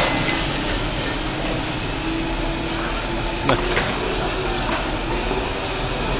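Steady background hum with a faint murmur of voices, and a few light taps of a mallet on a toy xylophone about halfway through.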